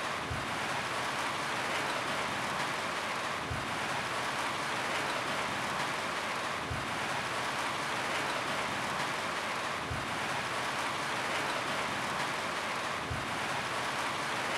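Steady rain falling on a roof, an even, unbroken hiss of drops.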